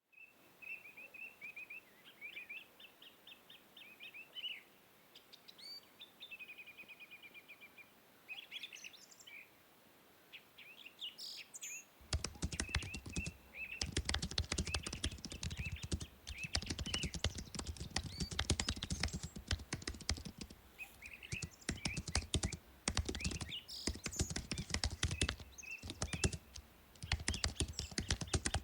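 Small birds chirping and tweeting. About twelve seconds in, fast typing on a computer keyboard starts and goes on in quick runs with brief pauses, with the birds still chirping behind it.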